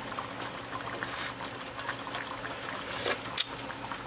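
Pork humba simmering in an aluminium pot, the cornstarch-thickened sauce bubbling with small steady pops and crackles. One sharp click sounds near the end.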